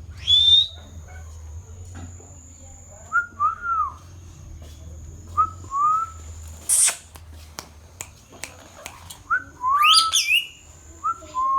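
Pet ring-necked parrot whistling short notes that rise and fall, in a few spaced bursts, with a loud sharp call just after the start and another about seven seconds in.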